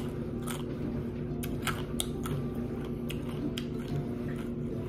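A crisp tostada crunching in short, sharp cracks, about a dozen scattered through the few seconds, over a steady low hum.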